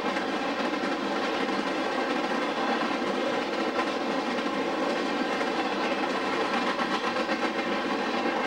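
A CSX freight train's cars rolling steadily past close by: the continuous rumble and clatter of steel wheels on the rails.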